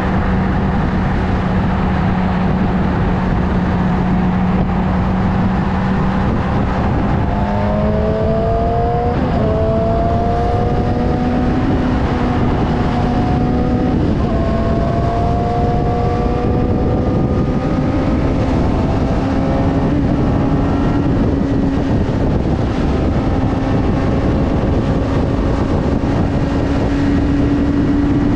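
Motorcycle engine running under way, over heavy rushing wind and road noise. Its pitch holds steady at first, then climbs gradually from about eight seconds in as the bike gathers speed.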